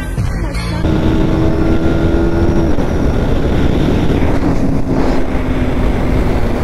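Two small sport motorcycles, a Yamaha R15 V4 and a KTM Duke, running hard in a drag-race fly-by, with heavy wind noise. A steady engine note holds for about two seconds, then slowly falls in pitch as they go past.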